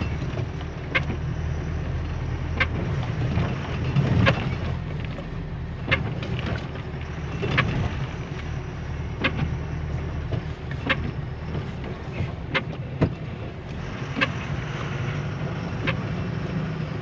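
Steady engine and road rumble inside a vehicle's cab, with the windscreen wiper giving a sharp click at each sweep, evenly about every second and a half.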